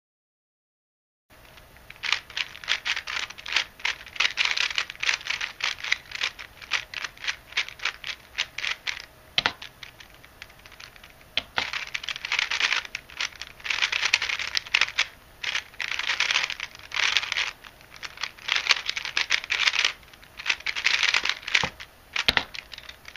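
A hand-modded Rubik's-type speed cube being turned fast during a timed solve: rapid, dense plastic clicking and clacking of the turning layers. It starts about a second in and runs with a brief lull a little before the middle.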